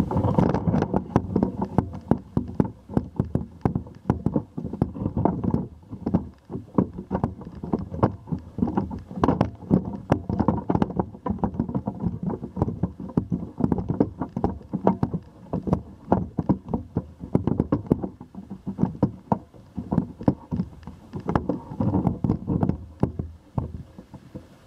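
Handling noise from a camera mounted on a tall extended pole as it is swung about: a dense run of irregular clicks, knocks and rubbing over a low rumble.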